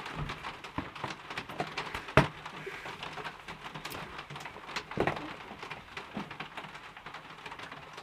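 Slime being handled in plastic containers and a bowl: scattered small clicks and crackles, with a sharper knock about two seconds in and another about five seconds in.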